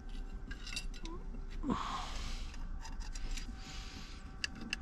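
Small metal governor parts being handled and fitted by hand, giving light scattered clicks and taps, with a brief vocal sound about two seconds in.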